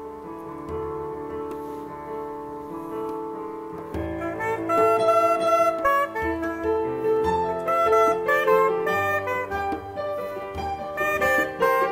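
Instrumental band music: a saxophone plays the melody over keyboard chords and a hand drum. Held chords give way about four seconds in to a louder, busier melodic line.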